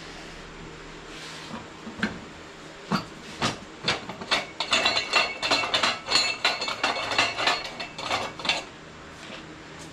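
Metal clinking and clanking: a quick, uneven run of knocks and clinks, some with a short ringing tone, from about a second and a half in until near the end, over a steady low hum.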